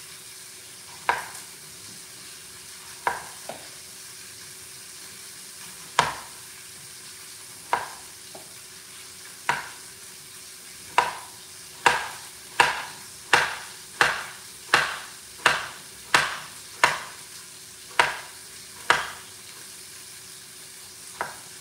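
Kitchen knife slicing a cucumber on a cutting board: a few scattered chops at first, then a steady run of about a dozen, a little more than one a second, and a last one near the end.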